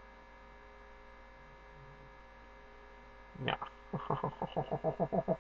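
Steady electrical mains hum. About three and a half seconds in, a man's voice starts up in quick, evenly spaced pulses, about five a second, to the end.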